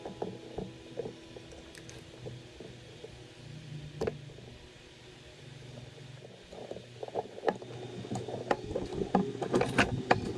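Irregular light clicks, taps and scrapes of small parts and tools being handled while a blower motor resistor's thermal fuse is swapped, over a low steady hum. There is a single click about four seconds in, and the clicks grow more frequent toward the end.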